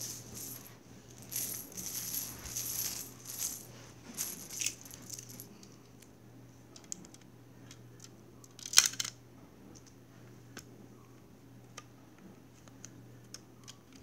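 Plastic Connect 4 discs being handled and dropped: a few seconds of rattling, then scattered clicks, with one loud clatter about nine seconds in and another at the very end.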